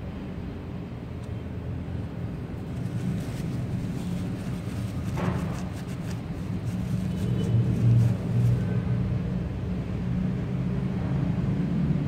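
A steady low rumble of background machinery, with paper towel rustling and rubbing against a spark plug as it is wiped dry, around the middle.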